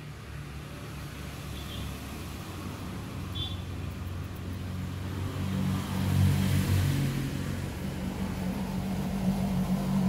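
A motor vehicle running, a low engine hum that grows louder and peaks about six seconds in, with a second swell near the end.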